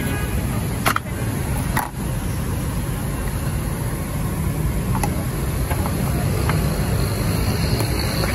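Steady low background rumble with a few sharp clicks and knocks as a spice shaker and a metal spoon strike a plastic mixing bowl of corn being seasoned and stirred.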